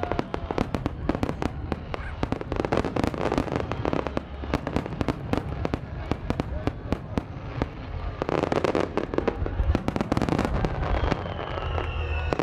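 Starmine fireworks barrage: a dense, rapid volley of shell bursts and crackling, heaviest in two swells, with a falling whistle near the end.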